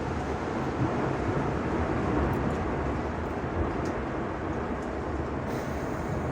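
Tornado winds rushing past the microphone as a steady, dense noise with a low rumble underneath.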